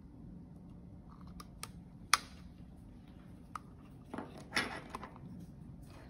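Hands handling small electronic parts and wires on a tabletop: a few light clicks and taps, the sharpest about two seconds in, and a couple of brief rustles a little past four seconds.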